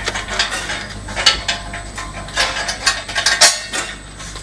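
Irregular metallic clicking and clattering of tools and bolts being worked into a machine's steel frame during assembly.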